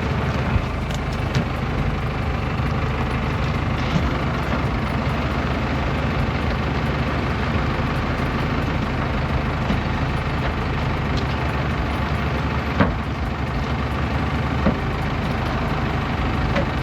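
Tractor engine running steadily, powering the hydraulics of a hitched tree-handling machine, with a few short clicks and knocks from the machine, the sharpest about two-thirds of the way through.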